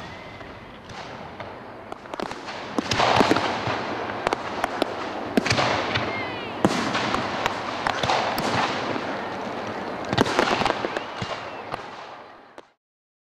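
Aerial fireworks going off overhead: a rapid run of sharp bangs and crackling bursts, with a few short whistles among them. It stops abruptly near the end.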